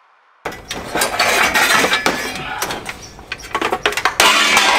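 Metal clinking and clattering of hand tools and parts being handled in a truck's engine bay, many quick knocks and clicks over a rough noise that grows louder near the end.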